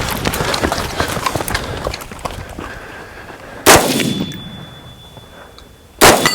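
Two gunshots about two and a half seconds apart, fired in a timed shooting drill. A thin ring, typical of a steel target being hit, carries on for a couple of seconds after the first shot. Before the shots there is a stretch of busy clattering and movement noise.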